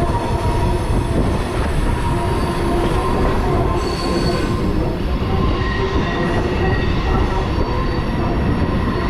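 Passenger train running on the rails: a continuous loud rumble with thin, steady high-pitched wheel squeal held over it.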